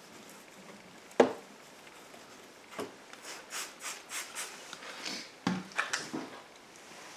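A detailing clay bar rubbed back and forth in straight strokes over wet car paint lubricated with detailer spray. It makes a run of short rubbing strokes, about two a second, in the second half, after a single sharp knock about a second in.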